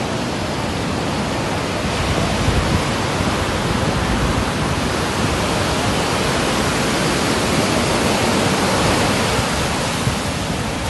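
Heavy surf on a rough sea, waves breaking and washing up the sand in a steady, even rush of noise. The sea is swollen by a low-pressure system.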